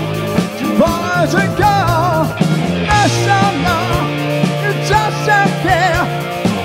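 Live rock band playing: a male lead vocal with wide vibrato over bass guitar, synth keyboard and a drum kit keeping a steady beat.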